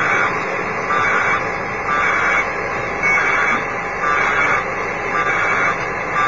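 Amateur radio transceiver's audio: rhythmic bursts of hissing noise about once a second, each around half a second long, over a steady background hiss.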